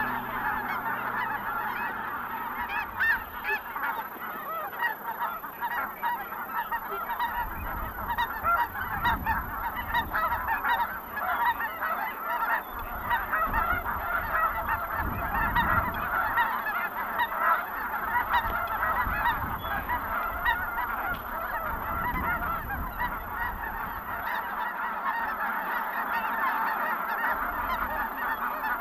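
Large flock of geese calling all at once, many overlapping calls with no pause, and a low rumble underneath from about seven seconds in to about sixteen.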